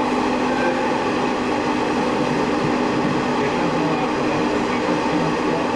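Sanriku Railway diesel railcar running along the line, heard from inside the car: a steady engine drone with several held tones over the even rolling noise of wheels on rail.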